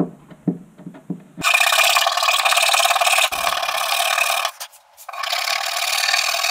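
Hand file scraping back and forth in a slot cut through a wooden model boat hull, in two long spells of quick strokes, the second starting about five seconds in, with a few light taps before the first.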